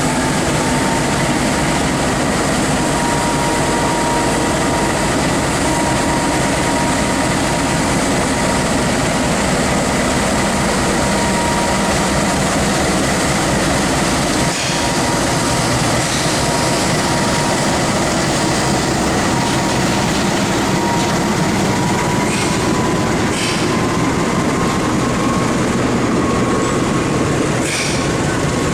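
Train running along the station track, a loud continuous rumble with a thin steady whine that rises slightly in pitch. A few sharp clicks come near the end.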